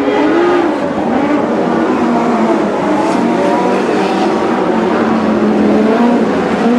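Several Lightning Sprint cars' motorcycle engines running at once on a dirt oval, each pitch rising and falling as the cars lift off and accelerate around the track.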